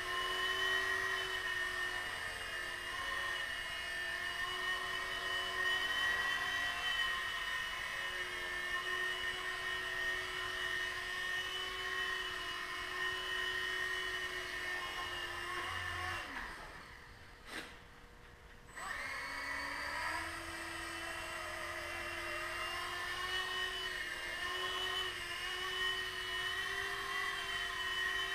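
Small electric Blade RC helicopter, its motor and rotors whining steadily. About sixteen seconds in the whine winds down and stops, a single click follows, and after about two seconds it spools back up and runs steadily again.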